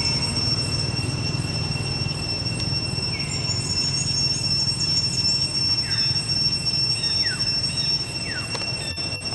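Steady high-pitched insect drone holding two even tones, one pitched at twice the other, over a low background rumble. A few short falling calls come in the second half.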